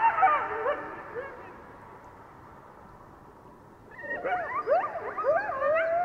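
Several coyotes yipping and howling together in overlapping, wavering calls that die away about a second in. After a few seconds of quiet, a new bout of yips and howls starts, ending on a longer held howl.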